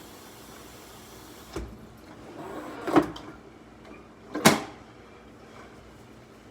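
Three knocks about a second and a half apart, the last the loudest, with a short rustle leading into the second: a cupboard or door being handled and shut.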